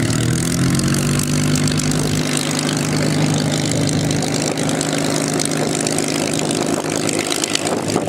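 Supermarine Spitfire's Rolls-Royce Merlin V12 engine running at low taxi power as the aircraft taxis. Its note rises a little over the first couple of seconds, then holds steady.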